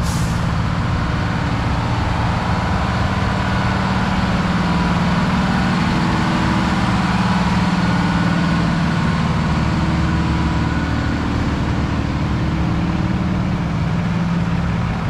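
Heavy fire-truck engines idling steadily, an even low hum with no change in speed.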